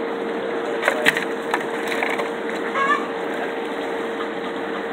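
Crab shells cracking and crunching as gloved hands break and sort cleaned crabs: a few sharp cracks about a second in, over a steady background rush.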